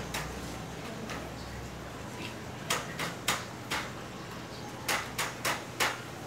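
Sharp knocks from a metal pole stand being put together by hand: one near the start, then four at about three a second about three seconds in, and four more near the end.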